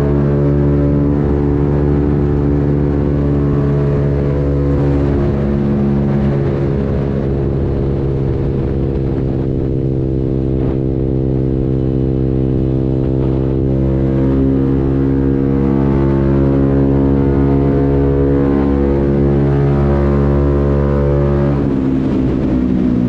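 Italjet Dragster 125 scooter's engine through an Akrapovic racing slip-on muffler with its baffle removed, running at a nearly steady pitch with small swells and easing off, dropping in pitch, near the end.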